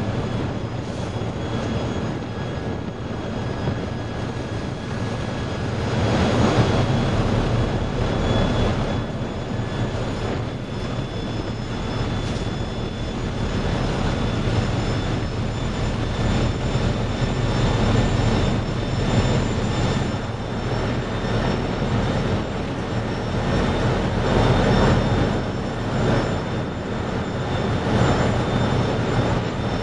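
A tug's diesel engines running steadily with a low rumble, under a rushing noise of wind and sea that swells and eases every few seconds.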